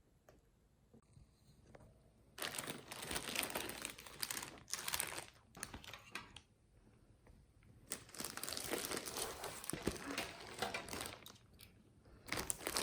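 Packaging being unwrapped by hand: crinkling and rustling in a few bouts after a quiet start, with a short lull between them.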